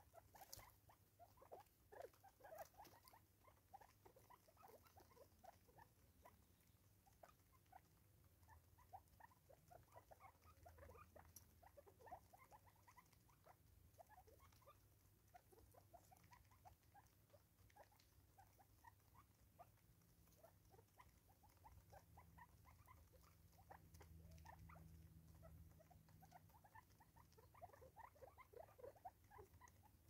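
Crested francolins pecking seed off a wooden tree stump: a faint, dense, irregular patter of quick taps and clicks. A low hum comes in faintly about two-thirds of the way through.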